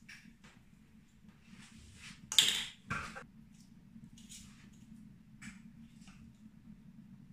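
Spice containers and a plastic measuring spoon being handled: scattered soft rustles and clicks, with a loud clattering knock about two and a half seconds in and a smaller one just after, over a steady low hum.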